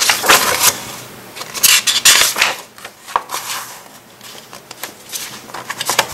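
Pages of a paperback picture book being turned and smoothed flat by hand: paper rustling and rubbing in several short bursts, loudest at the start and about two seconds in.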